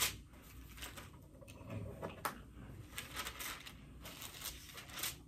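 Faint rustling and soft crinkling of thin Bible pages being turned by hand, in scattered small clicks and swishes, as the passage is looked up.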